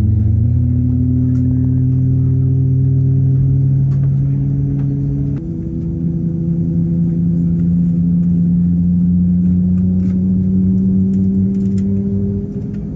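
Airliner cabin drone heard from a window seat beside a COMAC C919's CFM LEAP-1C engine as the engine is being started: steady low hums that drop in pitch and level about five seconds in, then one hum slowly rising in pitch toward the end.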